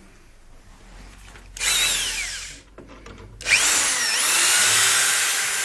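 Handheld electric drill run twice on a car door's inner panel. The first is a short burst about a second and a half in whose pitch falls as it winds down. The second run starts a little past halfway, rises in pitch as it spins up, and keeps running steadily.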